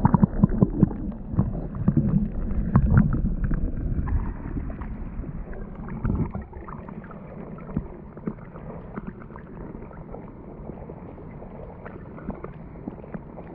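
Stream water sloshing and gurgling around a camera dipped in the current, heard muffled. It is choppy with many knocks for the first six seconds, then settles to a steadier, quieter rush.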